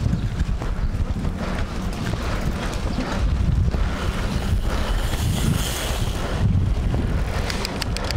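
Wind buffeting the microphone of a camera on a moving bicycle: a steady low rush, with a brighter, stronger hiss from about four and a half to six and a half seconds in.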